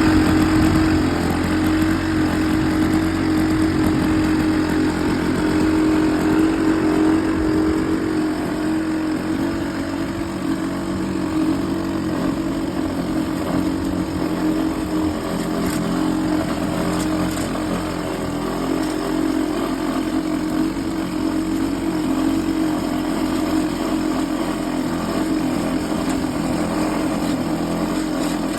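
Vintage Lawn-Boy mower's two-stroke engine running steadily, a little louder over the first several seconds.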